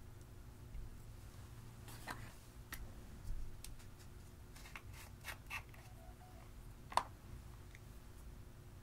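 Scattered light clicks and taps from handling plastic lip-balm containers and a metal tool over glass dishes of crumbled eyeshadow, with a small run of clicks past the middle and one sharper click toward the end.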